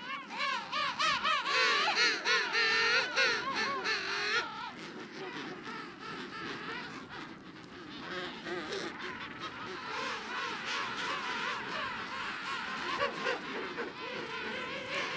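King penguins calling in a colony: a loud call whose pitch wavers rapidly up and down for the first four seconds or so, then many fainter calls overlapping from around the colony.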